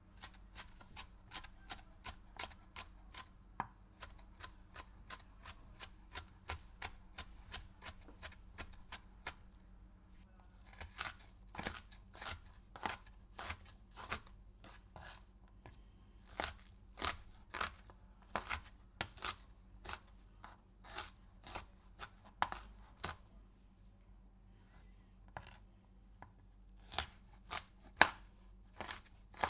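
Knife slicing through a pepper against a cutting board in quick repeated cuts, about three a second. The cuts are lighter in the first third, then louder after a brief pause, with another short pause before the last few cuts.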